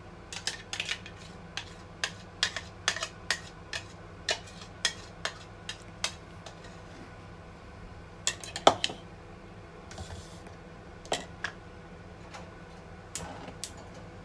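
A spoon tapping and scraping puréed carrot out of a blender jar into a steel saucepan, the spoon, jar and pan rim clinking together. It goes as a run of sharp clinks about two a second, then a loudest quick cluster a little past the middle, then a few spaced knocks.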